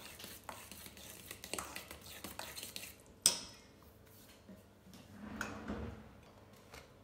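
A metal spoon stirring and scraping mashed banana in a stainless steel mixing bowl, with small clicks, then one sharp metal clink a little over three seconds in.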